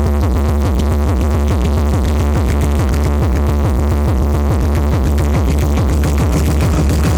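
Loud electronic dance music played through a paredão car-audio sound wall, with a heavy, steady deep bass and repeated falling synth sweeps above it.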